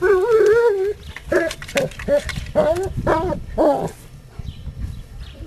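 German Shepherd dog whining: one long wavering whine, then about half a dozen short whines that rise and fall in pitch.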